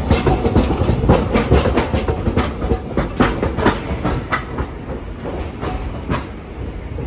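Hiroshima Electric Railway 800-series tram rolling past close by, its wheels clacking repeatedly over the station's points and rail joints above a low running rumble. The clacks thin out and fade as the tram moves away over the last couple of seconds.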